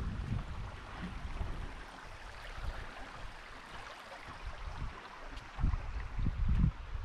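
Rushing river water from nearby rapids, heard as a steady hiss. Wind buffets the microphone at the start and again from about five and a half seconds in.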